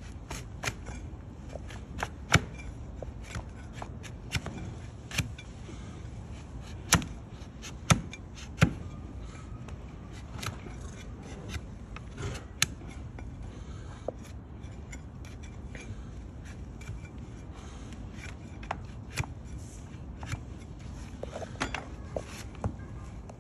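A flat steel hoof-trimming push knife shaving a donkey's hoof horn: steady scraping, broken by irregular sharp cracks as the blade slices off pieces of hard horn, a few of them much louder than the rest.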